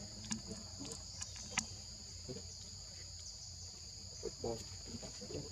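Steady high-pitched insect chorus of crickets or cicadas, holding two even tones, with a few faint sharp clicks in the first couple of seconds.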